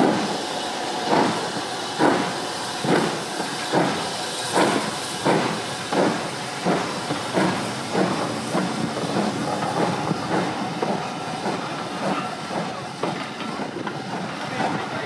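Flying Scotsman, an LNER A3 three-cylinder steam locomotive, chuffing: regular exhaust beats that quicken and then grow fainter after about eight seconds, blurring into a steady hiss.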